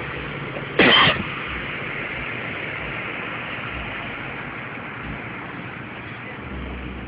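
Steady noise of cars idling in a parking lot, mixed with wind on the microphone, broken about a second in by one loud blast of about half a second.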